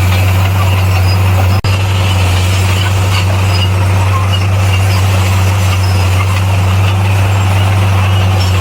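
Bulldozer's diesel engine running steadily with a constant low drone, cut by a split-second dropout about a second and a half in.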